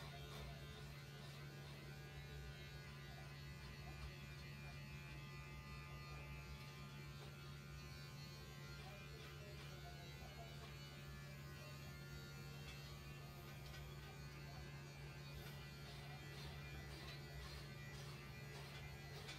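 Electric pet hair clippers running with a steady, faint buzz while shaving a cat's coat short, with faint music underneath.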